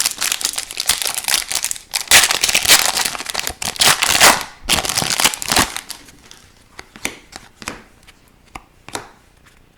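Plastic wrapper of a hockey card pack crinkling and tearing open, loudest a few seconds in, then a few light clicks as the cards are handled.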